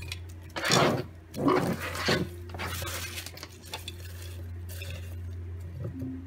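A deck of tarot cards being shuffled by hand: three brisk rustling strokes in the first two seconds, then softer card handling, over a steady low hum.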